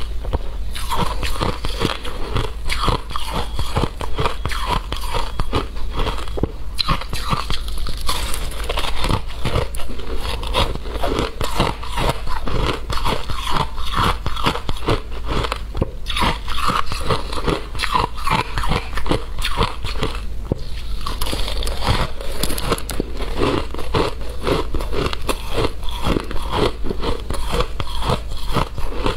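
Close-miked crunching and chewing of shaved ice: dense, irregular crisp crunches of frozen ice crystals being bitten and ground between the teeth, with no pause.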